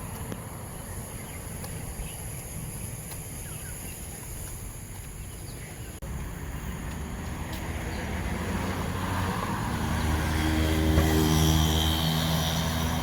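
A motor engine passing, its steady hum growing louder to a peak about eleven seconds in.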